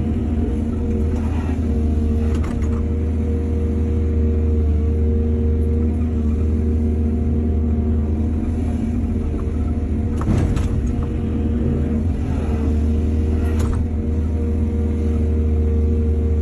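Excavator's diesel engine running steadily under load, with a few sharp knocks, the loudest about ten seconds in.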